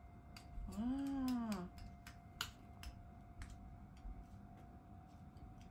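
Scattered plastic clicks and clacks from a selfie-stick phone holder being handled and its parts worked, with a short hummed "hmm" rising and falling in pitch about a second in.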